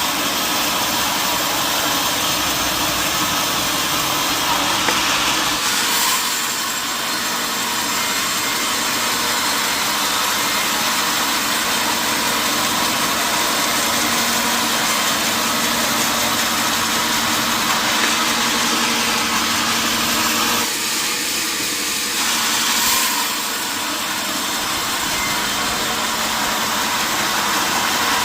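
Sawmill machinery running steadily, a constant loud whir with a steady hum, dipping slightly about six seconds in and again just past twenty seconds.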